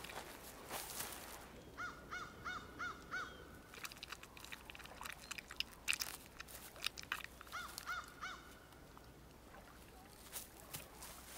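Bald eagle calling: two quick series of about five clear, arched piping notes, the first about two seconds in and the second about seven seconds in, among scattered sharp clicks and taps.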